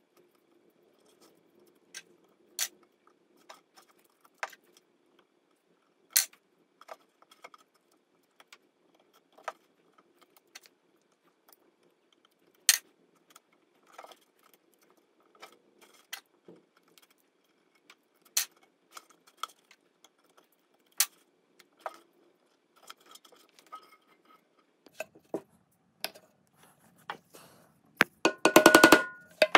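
Sharp isolated clicks and knocks, a few seconds apart, as a black strap is worked around a pandeiro's wooden frame by hand. Near the end comes a quick run of mallet taps on a blade held against the rim, the loudest part.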